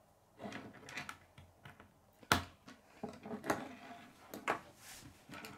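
K'nex plastic rods and connectors clicking and knocking as they are handled and snapped together on a wooden tabletop, in irregular clicks with the sharpest one a little over two seconds in.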